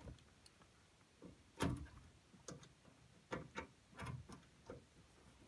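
Scattered light clicks and taps of small screws being turned in on a TV circuit-board video connector, the loudest about a second and a half in and several more through the second half.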